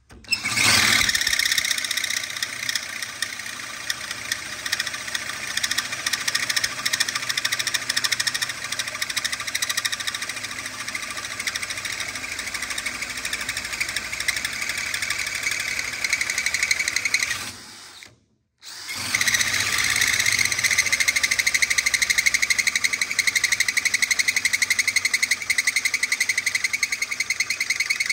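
Bimetal hole saw in a Rogue Fabrication tube notcher, spun fast by a drill, cutting a notch into an oiled steel tube: a steady, high-pitched grinding of the saw teeth on the metal. It stops for about a second partway through, then starts again.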